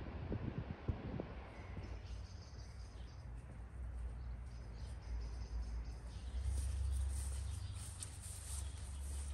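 Rural garden ambience of high chirping calls, thicker and louder from about two-thirds of the way in, over a steady low rumble. Wind buffets the microphone in the first second or so.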